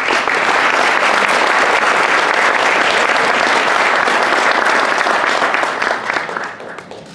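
Audience applauding: dense, steady clapping from many hands that dies away near the end.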